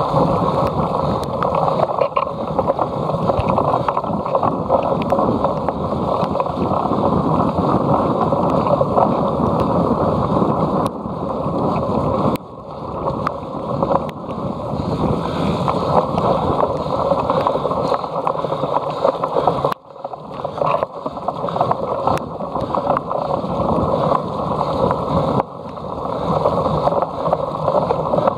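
Wind buffeting a camera's microphone while riding a cyclocross bike: a loud, steady, muffled rush that dips briefly three times.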